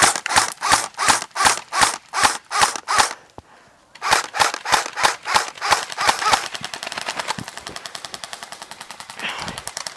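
Airsoft electric rifle firing: a rapid string of shots at about three or four a second, a brief pause about three seconds in, another string, then from about six seconds in a fast, even full-auto rattle.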